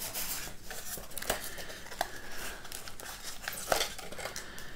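Handling noise from a radiosonde's polystyrene foam casing and its foil-wrapped battery pack being pulled apart by hand: quiet rubbing and crinkling with a few sharp clicks.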